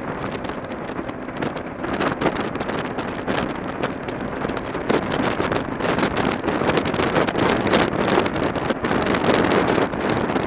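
Wind buffeting the microphone of a motorcycle-mounted camera at highway speed, gusting in rapid irregular blasts, with the motorcycle's engine running underneath.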